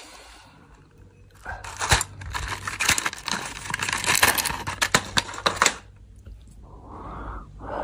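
Crinkling, tearing and a quick run of clicks from fever medicine packaging being opened and handled, starting about a second and a half in and lasting about four seconds.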